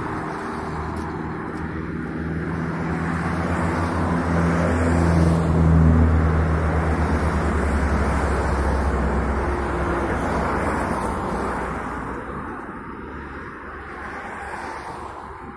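Road traffic: a passing motor vehicle's low engine hum and road noise build to their loudest about six seconds in, then fade away.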